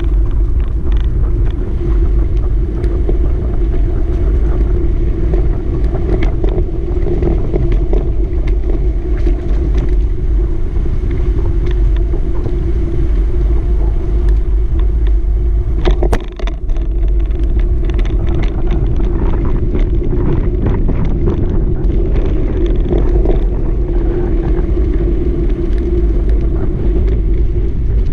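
Steady loud rumble of a camera riding along a trail, made of tyre noise and wind buffeting the microphone, with a steady hum running through it. Frequent small knocks come as it rolls over cracks and bumps in the concrete and gravel, with a sharper jolt and brief drop about halfway through.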